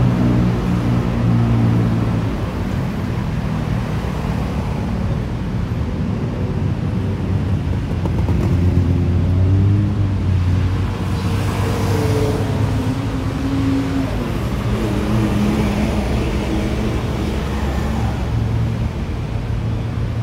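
Street traffic: engines of vehicles running and passing, their pitch rising and falling, over a steady low road rumble.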